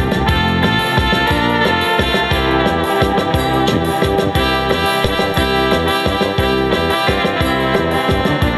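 Yamaha PSR-S770 electronic keyboard playing organ-like held chords over a rhythmic bass accompaniment.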